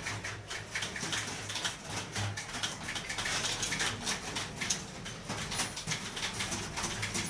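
Rapid, irregular key clicks of someone typing on a keyboard, several strokes a second, over a steady low hum.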